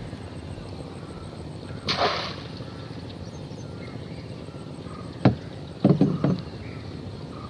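A wire-mesh fish trap set down into wet marsh grass beside a boat, with a brief rustle about two seconds in. Just after five seconds there is one sharp knock, then a few duller knocks against the boat as a long wooden stick is handled.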